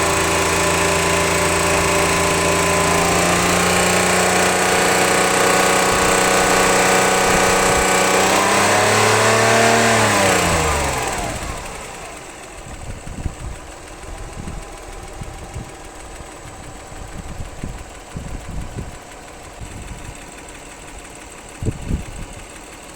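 Car engine held at raised revs, then the revs fall away about ten seconds in and it drops to a much quieter, uneven running with irregular low knocks. The knock is one the owner suspects comes from a piston, and it stays even with a petrol injector switched off.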